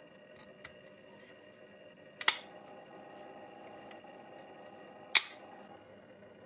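Two sharp clicks about three seconds apart as model car body parts are handled and fitted together in the hands, over a faint steady background.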